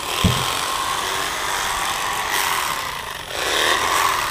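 Corded electric fillet knife running and cutting the rib cage out of a blue catfish fillet; it starts abruptly, eases briefly about three seconds in, then runs harder again before tapering off.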